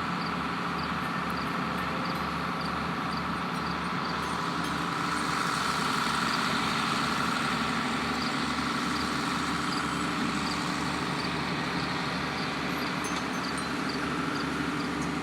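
A vehicle engine idling steadily, with an even low throb.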